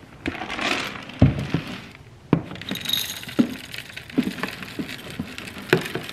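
Dry cat kibble poured from a plastic storage container into a food bowl: a rattling patter with scattered sharp clicks and knocks of kibble and container, the loudest about a second and two seconds in.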